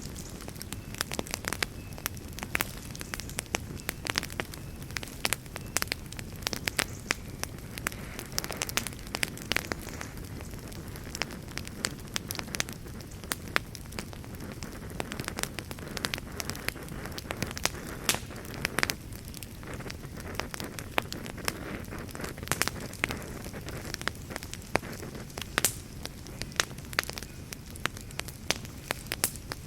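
Wood fire burning in a fireplace, with a steady low rumble of flames and frequent sharp, irregular crackles and pops from the burning wood.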